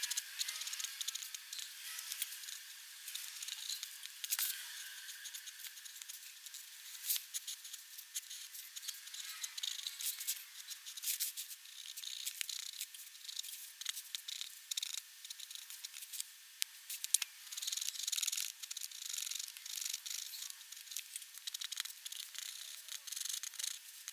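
Black pigment pen nib scratching across paper in many short, irregular strokes, as in inking and hatching.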